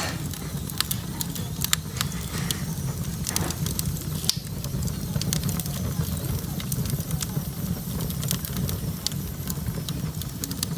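Firewood burning in a fireplace, crackling with irregular sharp pops, several a second, over a steady low rumble.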